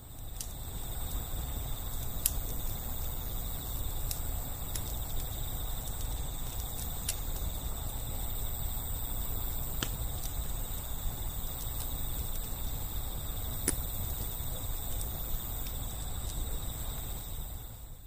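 Outdoor ambience: insects trilling steadily and high, over a low steady rumble, with a dozen or so sharp pops scattered throughout.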